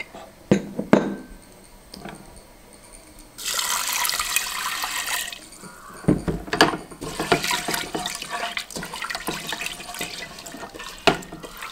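Toor dal being washed in a pressure cooker pan: a few small knocks, then water poured in for about two seconds, then the dal swished and rinsed in the water with splashing and small knocks against the pot.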